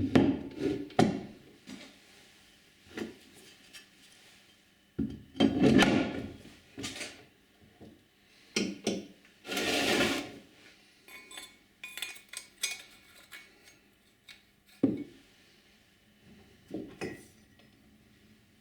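Metal parts of a tram gear shifter being handled and fitted together on the bench: irregular clinks and knocks, with a longer sliding scrape about ten seconds in.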